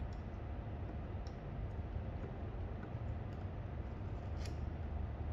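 A few faint, sharp clicks and taps of a small tool and metal parts as new seals are worked into a La Pavoni lever espresso machine's group, the loudest about four and a half seconds in, over a steady low hum.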